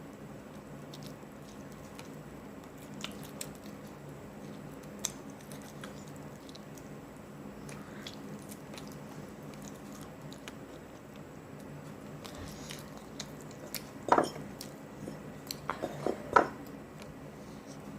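Close-miked chewing and wet mouth sounds of someone eating fried chicken, with scattered small smacks and clicks. A few louder mouth sounds come near the end, over a faint steady hum.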